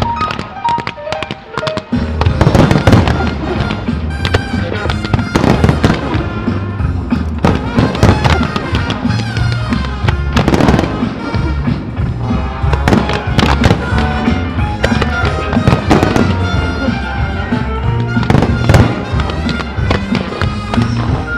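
Aerial fireworks bursting in a dense barrage of bangs and crackles over a loud music soundtrack, with steady bass notes under it. The barrage thickens sharply about two seconds in.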